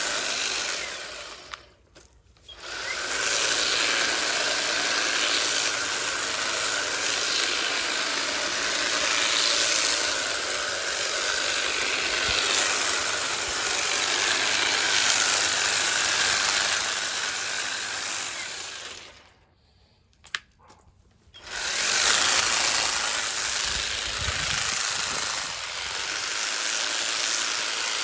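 Ego battery multi-tool with hedge trimmer attachment running, its reciprocating blades cutting through hedge. The trigger is released twice, briefly about two seconds in and for about two seconds near the twenty-second mark, and each time the trimmer starts up again.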